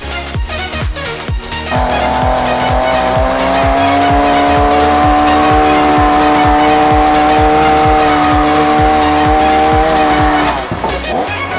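Electronic background music with a steady beat of about two beats a second. A long held tone with several overtones comes in sharply about two seconds in and stops about a second before the end.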